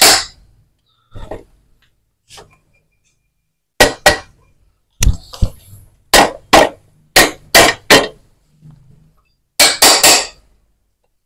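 Sharp hammer taps on a Yamaha Vixion motorcycle engine's crankcase, knocking the case halves apart. About a dozen strikes come in irregular groups, starting about four seconds in, with a quick flurry near the end.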